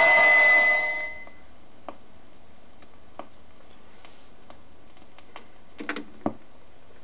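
A song on a 45 rpm single fades out on a Fidelity HF45 autochanger record player. Then the stylus ticks in the run-out groove about once every 1.3 seconds, once per turn of the record. Near the end come a few quick clicks and a sharper click as the changer mechanism trips and the tonearm starts to lift.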